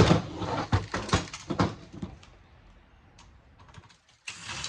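Clicking and clattering of small hard metal and plastic parts being handled as a stereo receiver is pulled apart, busiest in the first two seconds, with a short scrape near the end.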